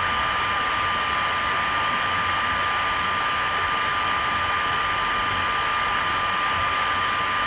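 Steady hiss with a constant thin high whine, holding at one level throughout: continuous background noise such as a fan or electrical hum.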